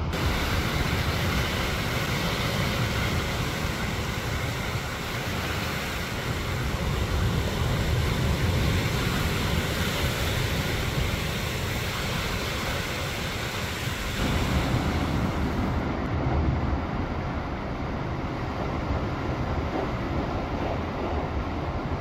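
Sea waves surging in and breaking over a rocky shore: a continuous rushing wash of surf with a deep low rumble underneath.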